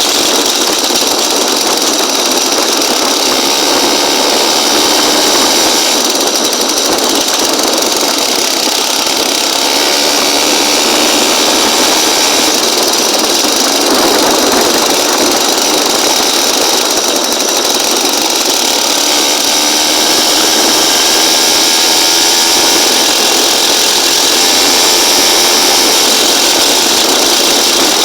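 Small engine of a motorized bicycle running steadily with a buzzy, chainsaw-like sound, swelling slightly now and then.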